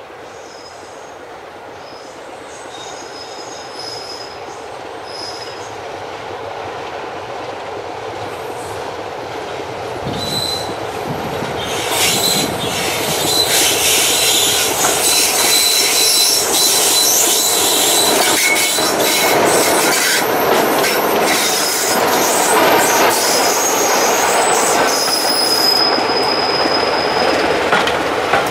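Diesel locomotive hauling a train of passenger coaches, approaching under power and growing steadily louder. It is loudest from a little under halfway through, as the train rolls past close by with the coach wheels clattering over the rail joints.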